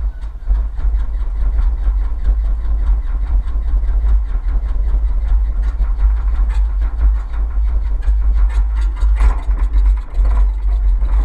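Beechcraft V-tail Bonanza's six-cylinder piston engine catching at the start and then running steadily at idle, its propeller turning, with wind rumble on the microphone from the prop blast.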